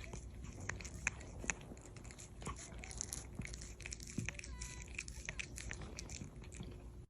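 A cat chewing and crunching its food: a run of small, irregular crunches.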